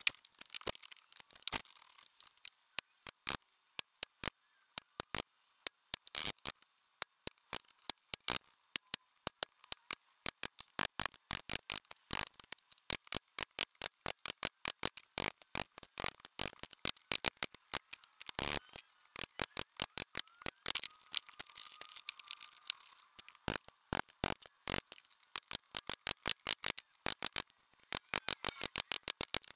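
Bench chisel chopping out the waste between wooden dovetails: quick, irregular sharp clicks and taps, several a second.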